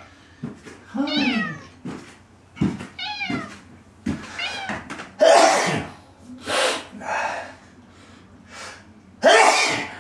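Domestic cat meowing from loneliness at being left alone: two plaintive meows in the first few seconds, then several louder, rough, breathy cries without a clear pitch, the loudest about halfway through and near the end.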